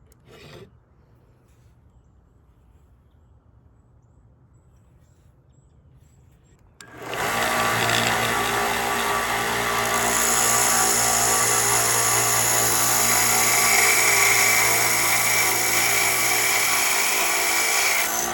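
An electric drill starts about seven seconds in and runs steadily, drilling into the steel angle iron of a jig. A high whine joins in partway through.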